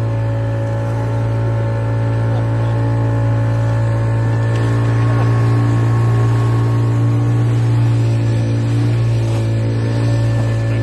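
Outboard motor of a small open boat running steadily at cruising speed: a loud, even drone with a strong low hum, over the rush of water from the wake.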